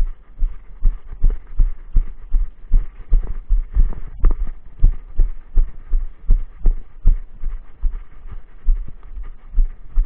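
A hiker's footsteps on a dirt trail, heard as a steady run of low, dull thuds a little under three a second, carried through a body-worn camera.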